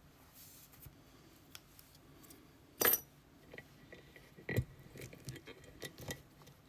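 Small metal clicks and clacks from handling a freshly picked-open lock cylinder and its picking tools. There is a sharp clack about three seconds in and another about a second and a half later, with lighter ticks after it.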